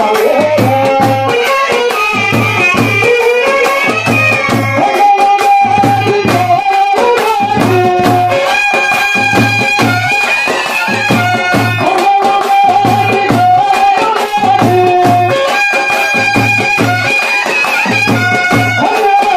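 Live Telugu folk-band music. A large stick-beaten barrel drum keeps a repeating low beat in pairs, under steady clicking and rattling percussion, while a melody instrument plays long, sliding notes above.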